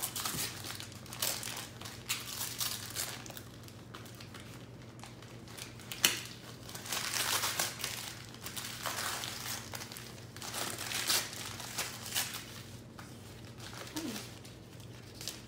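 Wrapping paper crinkling and tearing in irregular bursts as a present is unwrapped by hand, with the loudest, sharpest rip about six seconds in.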